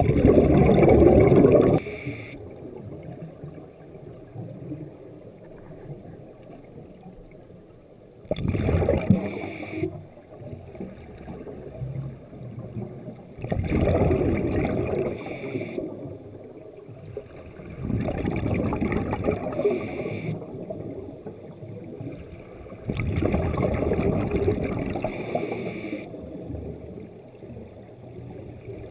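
Scuba regulator exhaust bubbles from a diver's exhalations, heard underwater through a GoPro housing: five bubbling bursts of two to three seconds each, about every five seconds, in the rhythm of breathing.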